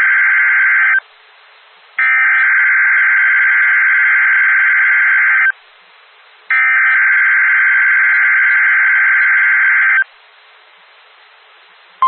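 NOAA Weather Radio SAME digital header: bursts of rapid two-pitch data tones that encode the alert for the required weekly test. The first burst is already under way and ends about a second in. Two more bursts of about three and a half seconds each follow, separated by a second or two of faint hiss.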